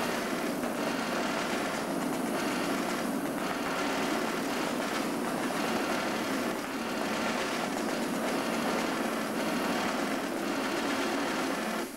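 Machine guns in a B-17 bomber replica's turret firing blanks in one long continuous rattle, cutting off abruptly near the end.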